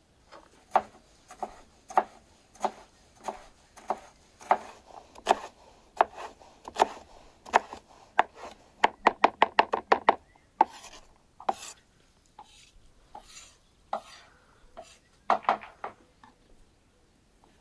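Wide-bladed chef's knife chopping bell peppers on a wooden cutting board: sharp blade strikes, at first one or two a second, then a quick run of fast chops past the middle, then a few scattered taps that stop shortly before the end.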